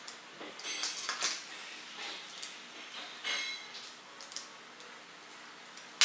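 Small plastic toy-robot kit parts being handled and a small screw driven in with a screwdriver: a scattered series of light clicks and short scratchy scrapes.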